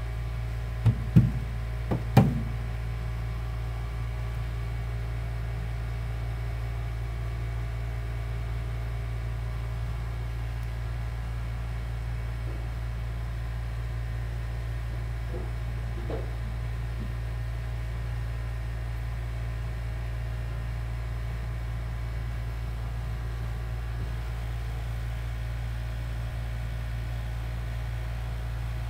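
Steady low hum with a faint hiss, broken about one to two seconds in by four sharp knocks, the loudest near two seconds, and later by a couple of faint ticks.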